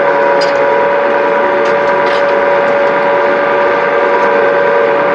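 Clay-brick extruder with mixer, driven by a 380-volt electric motor, running steadily with a constant whine, pushing out a clay column. A few light knocks and scrapes come from soil being shovelled in.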